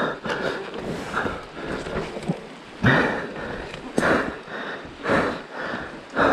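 A person breathing hard, heavy breaths about once a second, close to a chin-mounted camera's microphone.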